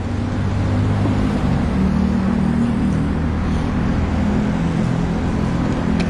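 Steady engine and road rumble of a car in motion, heard from inside the cabin.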